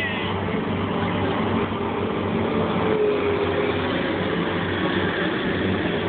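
Case skid steer loader's diesel engine running steadily as the machine drives and turns.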